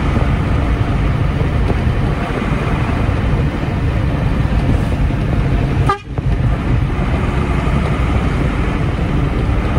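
Diesel engine of a freshly rebuilt Mercedes-Benz 1417 truck running steadily under way, heard from inside the cab as a loud low rumble, with a brief dip in the sound about six seconds in.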